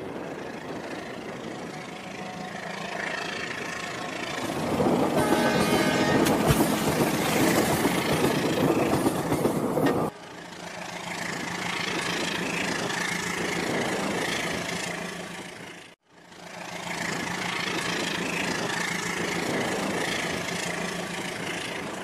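Diesel train sound: a steady engine drone, with a train horn sounding loudly from about four and a half seconds in for some five seconds. The sound breaks off abruptly twice, at about ten and sixteen seconds, and picks up again.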